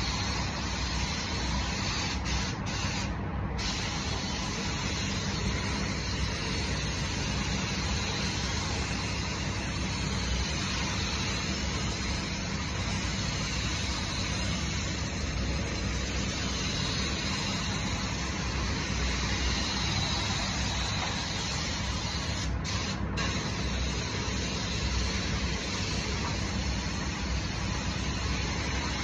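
Compressed-air paint spray gun hissing steadily as it sprays paint onto a car body panel, over a steady low rumble. The hiss breaks off briefly a few times about three seconds in and twice more around twenty-three seconds in.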